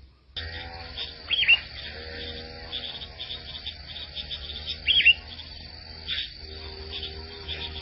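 Two short high bird calls, about a second and a half in and again about five seconds in, over a steady chorus of insects.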